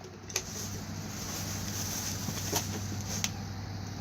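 Pump air horn sounding with its bell held under water in a bowl: a muffled low drone with a hiss of air bubbling out, the water blocking most of the blast. A few faint clicks come through the drone.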